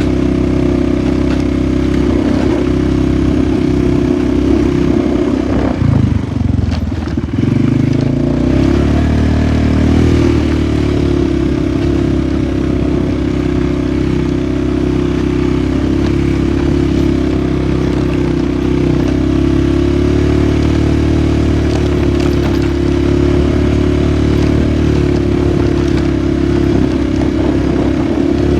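Polaris 450 ATV engine running steadily under throttle while riding. About six seconds in it eases off and drops in pitch, then picks back up.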